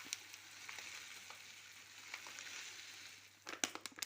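Faint kitchen noise: a steady hiss with scattered small crackles, then several sharp clicks of utensils or cookware near the end.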